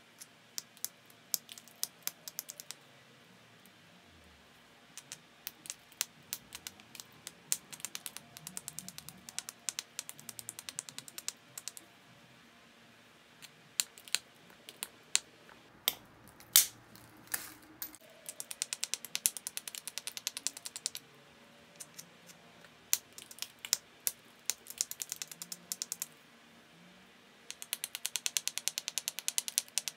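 Small hammerstone tapping along the edge of a flint biface: runs of quick, sharp stone-on-stone clicks in bursts, with a few louder single strikes about halfway through, as the edge is thinned and prepared.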